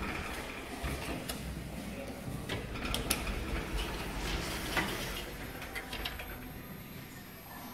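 Passenger lift doors sliding shut, with scattered clicks and rattles from the door mechanism.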